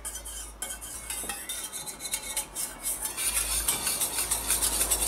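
Wire whisk beating a thin vinegar mixture in a stainless steel bowl: rapid ticking and scraping of the wires against the metal, growing louder about three seconds in.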